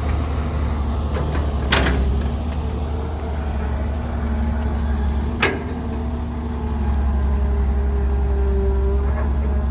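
Excavator's diesel engine running steadily with a low drone, with two sharp metallic clanks, one about two seconds in and one about five and a half seconds in.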